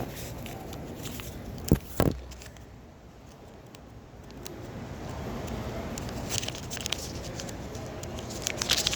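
Plastic earphone packaging being handled: two sharp clicks about two seconds in, then scattered crackling and rustling that picks up in the second half.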